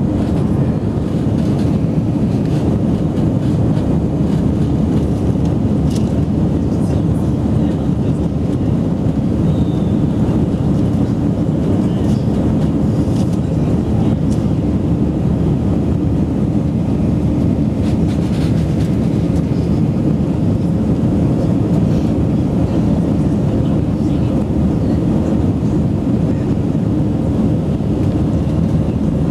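Steady, low-pitched cabin noise of an Airbus A319 climbing out after takeoff: the jet engines at climb power and air rushing past the fuselage, heard from a window seat over the wing.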